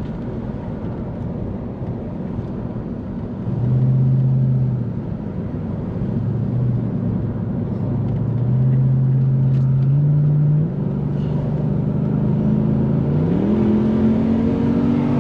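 Toyota Celsior's 1UZ-FE V8 engine pulling under throttle while the car drives. Its note holds fairly steady and gets louder about four seconds in. Near the end the revs climb, as the automatic gearbox nears its shift into second gear.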